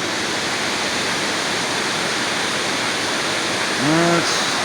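Water pouring over a dam and waterfall, a steady, even rush.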